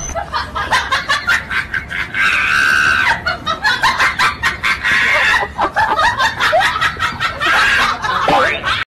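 A person laughing hard in quick repeated bursts, breaking into high-pitched shrieks of laughter, which cuts off suddenly near the end.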